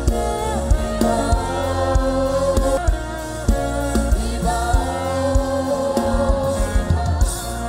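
Gospel worship music: held, choir-like singing over a steady bass with regular drum hits.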